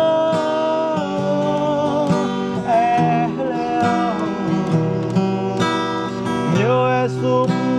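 Acoustic guitar strummed as accompaniment while a man holds long sung notes between lines of a song.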